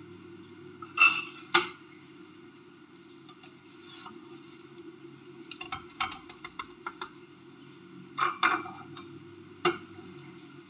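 Spatula and cooking utensil clinking and scraping against a nonstick frying pan as a rolled omelette is turned. Separate sharp knocks come about a second in, a quick cluster a little past halfway, and a few more near the end, over a steady low hum.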